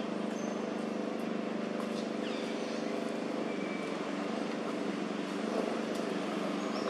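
Steady hum of a running engine or motor, even and unchanging, with a few faint high chirps over it.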